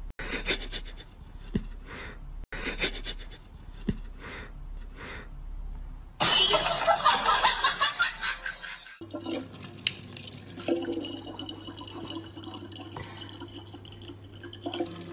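A loud, harsh burst of sound lasting about three seconds, then a thin stream of water pouring from a dispenser tap into a plastic bottle, over a steady low hum.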